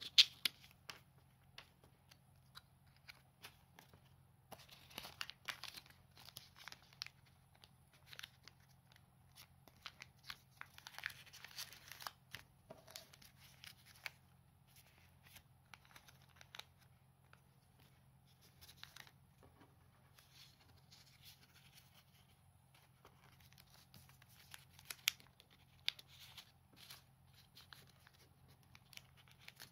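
Origami paper and small photo cards rustling and crinkling as hands open, fold and handle them, with scattered light clicks. The rustling comes in two denser spells, about five seconds in and again about eleven seconds in.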